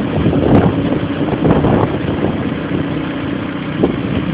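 An engine running steadily at idle, with gusty wind buffeting the microphone.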